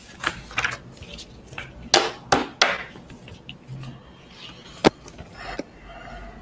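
A string of sharp knocks and clicks, picked up as handling noise on a video-call microphone: three loud ones about two to three seconds in and a single sharp click near five seconds.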